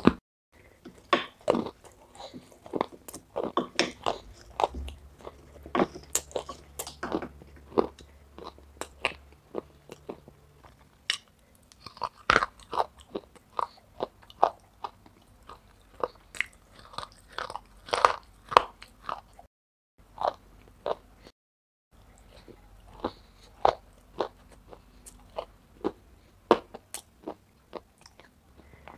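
Close-up biting and chewing of soaked gray clay chunks: a quick, irregular run of crisp crunches with wet chewing between them. The sound cuts out to dead silence twice, briefly, a little past the middle.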